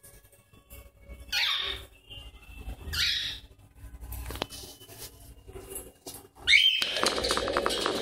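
Caged cockatiels and a rose-ringed parakeet squabbling over a nest: two short harsh squawks a little over a second apart, then near the end a rising call followed by a louder, busy stretch of scuffling and calls.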